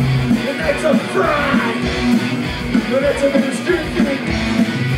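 Punk rock band playing live: loud electric guitar over bass and drums, with a singer's shouted vocals.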